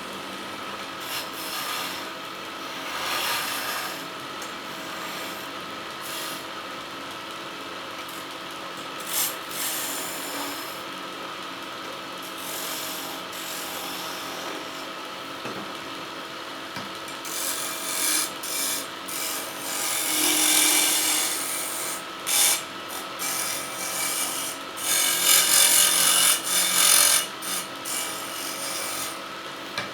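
Wood lathe motor running steadily, with repeated rasping bursts of a tool working the spinning wood. The bursts come more often and louder in the second half.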